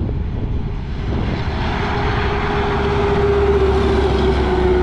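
Freightliner Columbia semi-truck's diesel engine approaching, growing louder, with a steady droning note that sinks slightly in pitch in the second half.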